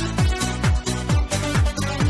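Electronic dance music with a fast, steady kick drum, each hit dropping in pitch, about five beats every two seconds, under a full synthesized backing.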